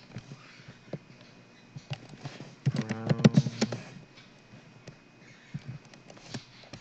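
Computer mouse clicks scattered through, with a short burst of keyboard typing about three seconds in, the loudest part.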